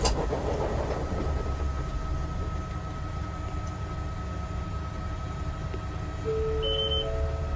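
Mitsubishi Fuso Aero Ace bus's diesel engine running with a steady low drone, heard inside the cabin. There is a sharp knock right at the start and a few short electronic tones near the end.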